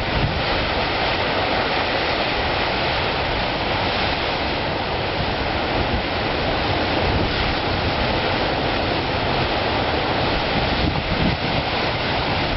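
Heavy Pacific surf breaking on a rocky shore: a continuous, even rush of breaking waves with no distinct single crash standing out.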